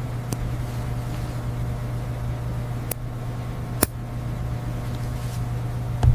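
A steady low mechanical hum, with three sharp clicks about a third of a second in, near three seconds and a little before four seconds.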